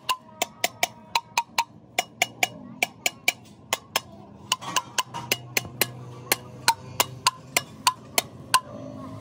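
A small hammer tapping the valve spring retainers on a Massey tractor's cylinder head, one sharp metallic click after another at about three a second with brief pauses. This is the usual way to seat the valve collets after the valves are assembled.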